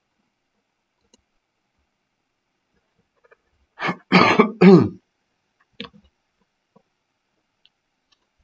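A man clears his throat: one rough burst a little under four seconds in, lasting about a second, followed by a few faint clicks.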